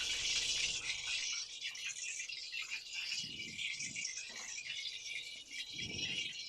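Coconut-milk fish curry simmering in the pot with a steady crackly bubbling hiss, as pieces of fish are added, giving a few soft plops.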